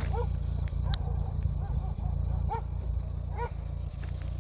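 Short arching animal calls repeat about once a second over a steady high chirring of insects and a low rumble.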